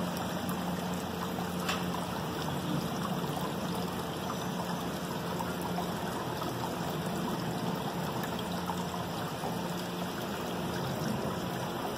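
Water trickling steadily from a small rock fountain, with a faint low hum underneath.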